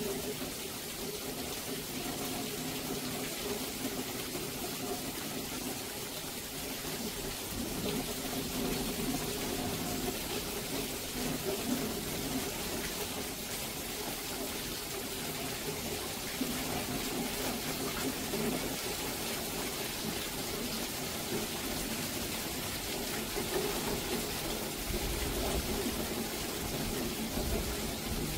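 Heavy monsoon rain falling steadily, with water pouring and splashing close by. A low rumble comes in near the end.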